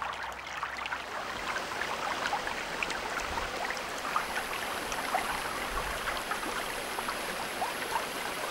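River water rushing steadily over rapids, with many small gurgles and splashes.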